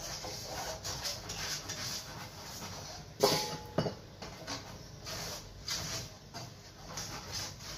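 Hands rubbing butter around the inside of a metal springform cake pan to grease it, a soft rubbing and scraping. About three seconds in, a brief sharp sound with a short ring stands out, followed by a smaller one.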